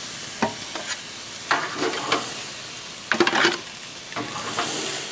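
Porterhouse steaks sizzling on a hot gas grill, a steady hiss, with a few short scrapes and clinks of metal on the grate as the steaks are pulled off.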